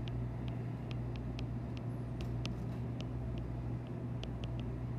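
Stylus tip ticking against an iPad's glass screen while handwriting, a few short ticks a second at an uneven pace, over a steady low hum.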